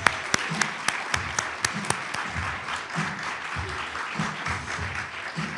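Audience applauding over background music with a steady beat.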